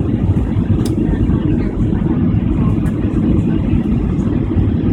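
Loud, steady low rumble of a Boeing 737's engines and airflow heard inside the passenger cabin.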